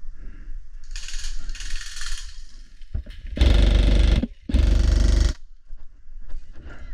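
Airsoft rifle firing two short full-auto bursts, each a rapid rattle of shots lasting under a second, with a brief pause between them. A fainter rustle comes before them.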